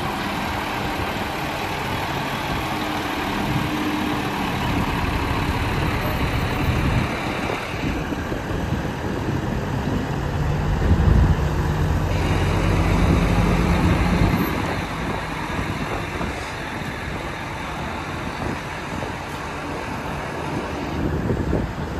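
Heavy-haul truck's diesel engine running steadily as it hauls a multi-axle trailer, growing louder for a few seconds around the middle.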